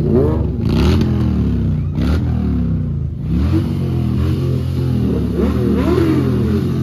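Several motorcycle engines running together and being revved in repeated blips, their pitch climbing and falling again and again.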